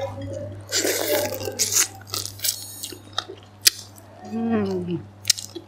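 Close-up eating sounds: bursts of crunching and chewing on a crisp fried roll, then a few sharp clicks. About four seconds in comes a short voiced hum that falls in pitch.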